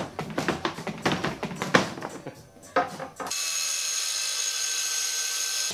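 Stainless steel pedal trash can being handled, its lid and foot mechanism clattering with rapid, irregular clicks and knocks. A little over three seconds in, an angle grinder cuts in with a steady high whine as its cut-off disc cuts through a thin steel rod.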